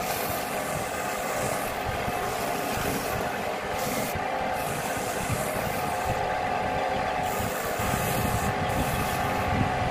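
Wood lathe motor running with a steady hum while a hand-held pad is pressed against the spinning wooden bowl, making a hissing rub that comes and goes in strokes of about a second.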